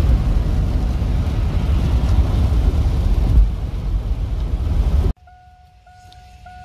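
Steady low road and engine rumble with tyre hiss from inside a car driving on a rain-wet highway. About five seconds in it cuts off abruptly, and faint music with repeating notes starts.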